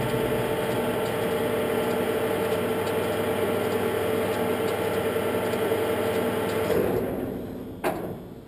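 Blanchard 18-36 rotary surface grinder's electric drive running with a steady hum. It winds down near the end, and a sharp click follows.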